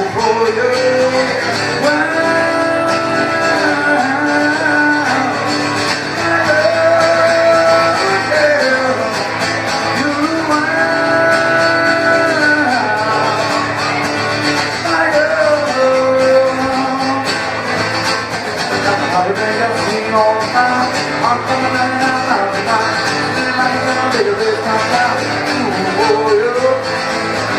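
Country-style song with guitar, a lead melody line holding long, bending notes over the strummed accompaniment.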